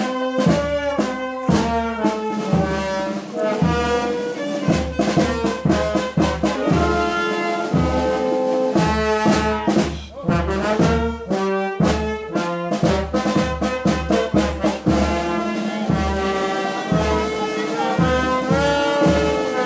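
Brass band playing a processional march, trumpets and trombones carrying the melody over a steady low beat.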